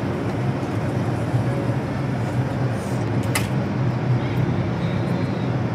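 R142 subway train standing beside the platform with a steady low hum, and one sharp click about three and a half seconds in.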